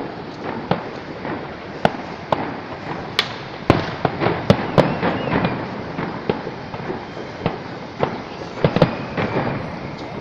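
Fireworks display: many sharp bangs and pops at irregular intervals over a continuous background hiss. The bangs come thickest about four seconds in and again around nine seconds.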